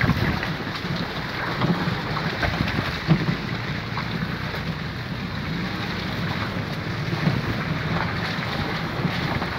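Wind buffeting the phone's microphone, with a steady low engine hum beneath it.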